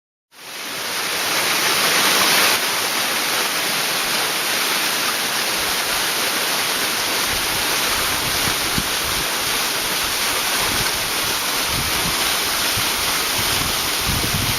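Waterfall pouring: a steady, dense rush of falling water that starts abruptly just after the beginning.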